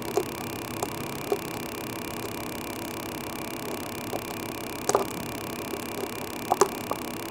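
Small scissors snipping open the moulded-over drainage holes in the base of a plastic flower pot: a few short sharp clicks, the loudest about five seconds in and a close pair near the end, over a steady background hiss.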